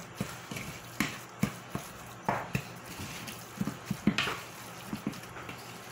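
Wooden spatula mixing ground beef with breadcrumbs in a bowl: irregular soft scrapes and knocks against the bowl, a few louder ones spread through.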